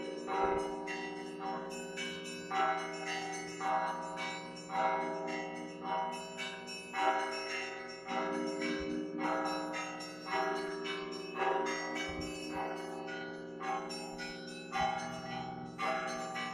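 Bells of the Spaso-Evfimiev Monastery belfry ringing in Russian Orthodox style: several bells of different pitches struck in a repeating rhythm about once a second, their tones ringing on between strokes.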